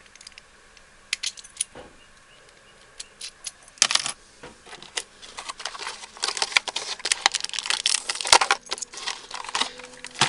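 Keys jangling and clinking as they are picked up and handled, a run of sharp metallic clicks that is sparse at first and grows busier in the second half.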